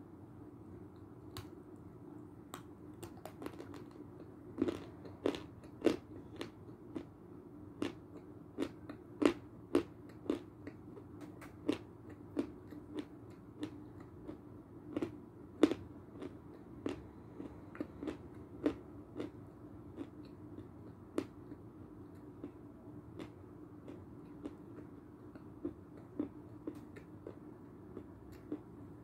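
Lumps of Belgorod chalk being bitten and chewed close to the microphone: a run of sharp, irregular crunches, about one or two a second, loudest through the middle, over a faint steady hum.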